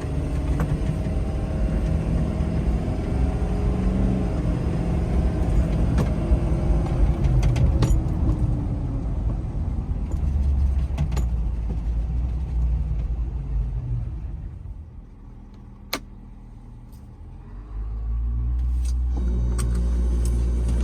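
Engine running with a steady low hum and shifting pitch, with a few sharp clicks; it drops away a little past the middle, then comes back up.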